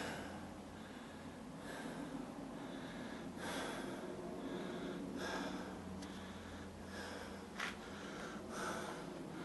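A man breathing audibly close to the microphone, each breath a soft rush of air, about every one and a half to two seconds.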